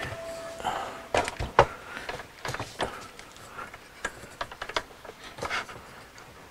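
Scattered light clicks and knocks of an EDgun air rifle's parts being handled and fitted together as its breech and puzzle-lock connector are put back.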